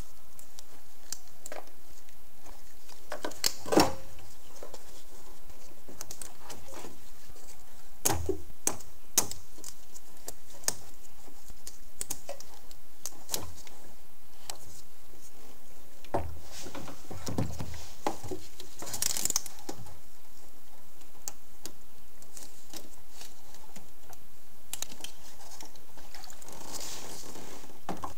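Scattered clicks, knocks and light rattles of a translucent plastic coolant degas reservoir being worked loose and lifted out of the engine bay by hand, with the loudest knocks about four seconds in, around eight to nine seconds, and between sixteen and nineteen seconds.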